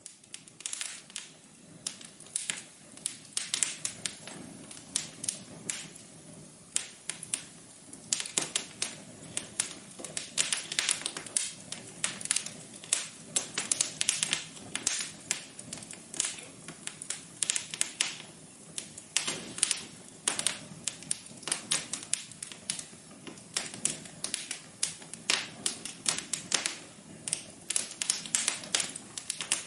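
Wood fire crackling in a fireplace: a constant run of irregular sharp pops and snaps over a soft hiss.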